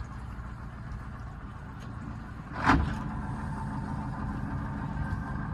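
A boat's motor running slowly while approaching a dock, with a short loud burst of noise about two and a half seconds in, after which the motor's hum is a little louder and steadier.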